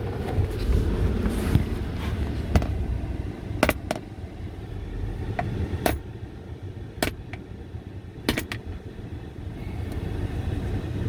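Ozark Trail axis-lock folding knife being flicked open and shut, about seven sharp clicks of the blade and lock snapping into place, spread irregularly over several seconds. A steady low rumble runs underneath.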